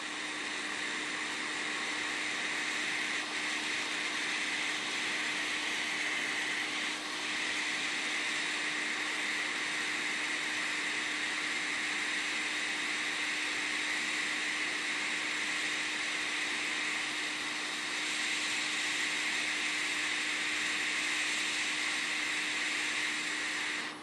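JBC hot air rework station blowing hot air through its nozzle onto a phone board to melt an SMD component's solder: a steady hiss with a faint low hum underneath, cutting down sharply at the very end.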